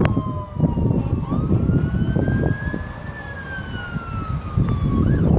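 An emergency-vehicle siren wailing in slow sweeps: falling, rising again about a second in, then falling, over heavy wind buffeting the microphone.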